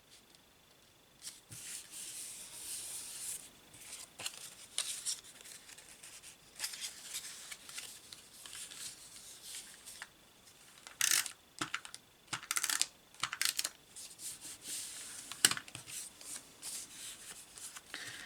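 Paper and cardstock being handled and rubbed on a work surface, in repeated rustling strokes, with a few sharp taps about eleven, twelve and fifteen seconds in.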